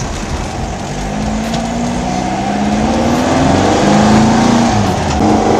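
2332cc air-cooled VW stroker flat-four engine pulling under load, its note climbing steadily, dipping briefly about four and a half seconds in, then climbing again.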